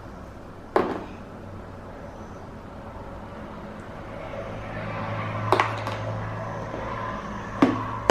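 A steady low hum that swells a few seconds in, with three sharp knocks: one about a second in, one midway and one near the end.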